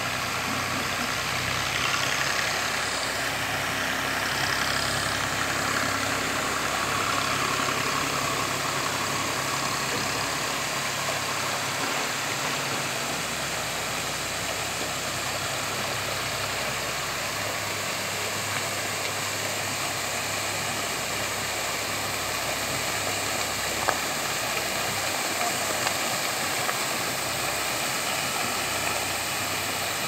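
Dandelion sphere fountain and its ring of arching jets spraying steadily: a continuous hiss and splash of falling water, with a low steady hum underneath.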